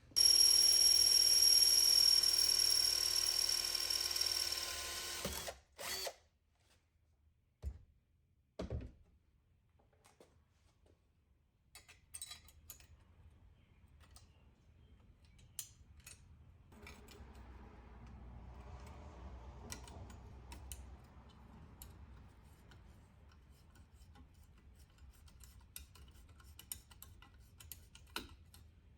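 An electric power tool runs at a steady pitch for about five seconds, then stops. A few short knocks and faint clicks and rustling follow.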